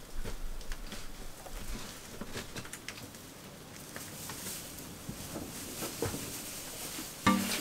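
Faint scattered clicks and light rustles of hands handling objects. Music comes in near the end.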